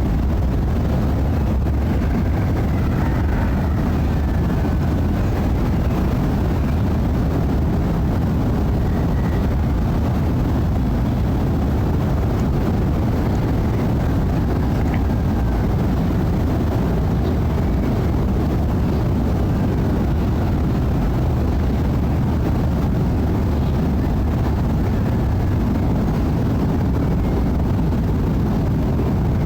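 Steady low rumble of a jet airliner's engines climbing out overhead, with a few faint short chirps above it.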